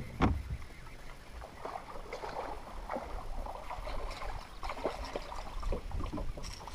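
Water lapping against a bass boat's hull, with a sharp knock about a quarter second in and scattered light clicks and knocks from rod-and-reel handling as a jerkbait is worked.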